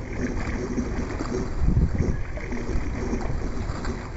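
Dragon boat being paddled: water sloshing and splashing from the paddle strokes under a low wind rumble on the microphone, swelling a little before the middle.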